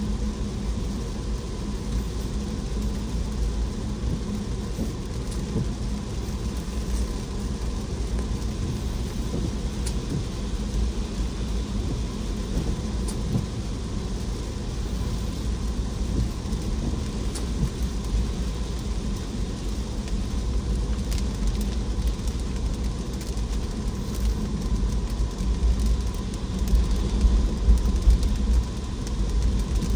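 Car driving in the rain: a steady low rumble of tyres and engine under an even hiss of rain, with faint scattered raindrop ticks, a little louder near the end.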